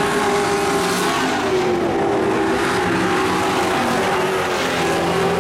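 Several dirt-track race truck engines running hard at once, their overlapping engine notes rising and falling as the trucks circle and pass along the fence.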